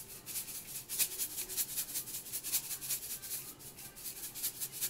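Salt shaken from a round salt container onto raw chicken pieces in a plastic bowl: a quick run of dry rattling shakes, several a second.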